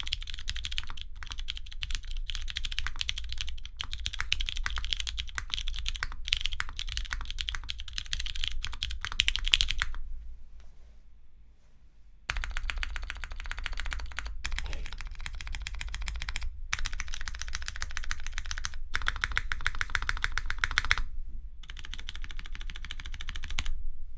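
Steady, fast typing on a custom mechanical keyboard with lubed Cherry MX Brown switches and GMK keycaps: a dense run of key clacks that stops for about two seconds near the middle, then resumes with a deeper tone.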